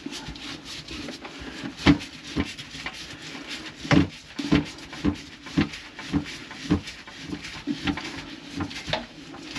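Repeated knocks and clunks from work on a kitchen sink's drain pipe under the sink, about two a second for most of the stretch, over a low steady hum.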